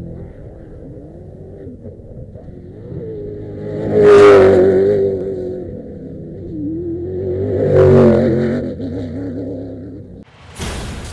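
Off-road race vehicles' engines revving hard as they pass, loudest twice, about four and eight seconds in, with the engine note rising and falling between. Near the end a sudden loud hiss of noise cuts in.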